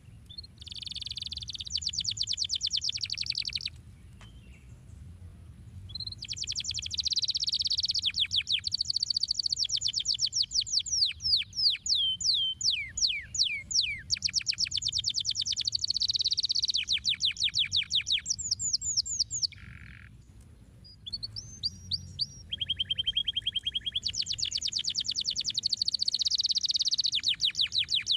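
Domestic canary singing: long, fast trills and runs of quick down-sweeping notes, in phrases broken by two short pauses, about four seconds in and about twenty seconds in.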